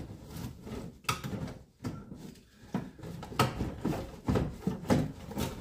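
Irregular clicks and knocks of hand tools and small metal and plastic parts being handled while a box is unbolted from a car's bulkhead, coming faster in the second half.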